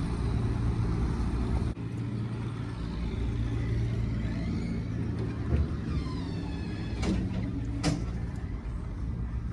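Car running steadily, heard from inside the cabin as a low hum with road noise. Two sharp knocks come near the end.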